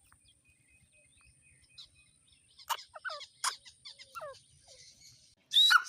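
Grey francolin calling: after a quiet start, a run of short, sharp notes that slide down in pitch, then one loud, shrill call near the end.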